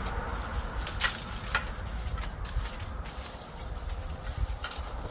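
Lumps of charcoal clinking against each other and against a rusty steel wheel-rim grill as they are taken from a woven plastic sack and set in place. There are a few sharp clicks, two about a second and a second and a half in, then fainter ones near the end.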